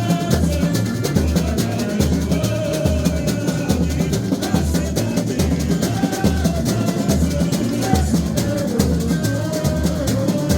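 Samba school bateria playing a samba at full volume: deep surdo drums keep a steady pulsing beat under a dense rattle of snares and shakers, with a melody line carried above.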